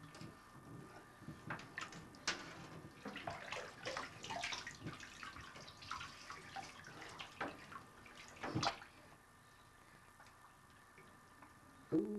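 Bathwater splashing and sloshing in a bathtub as a baby is washed by hand: a run of irregular splashes that settles down after about nine seconds.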